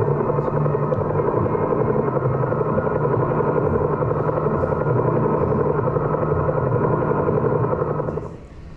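Steady aircraft noise on the soundtrack of a vintage airline TV commercial, played over a conference room's loudspeakers. It cuts off shortly before the end.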